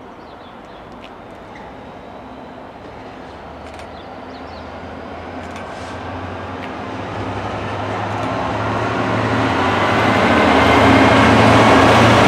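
GBRf Class 66 diesel-electric locomotive approaching and passing with a freight train of open box wagons. Its two-stroke V12 engine drone and the rush of wheels on rail grow steadily louder until the locomotive is alongside, near the end.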